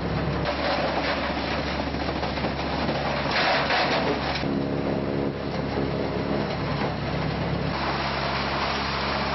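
Doppstadt AK-series mobile grinder running: a steady engine drone under the noise of brush and branches being fed in and shredded. It gets louder and harsher for about a second past the middle, and the sound shifts abruptly a couple of times.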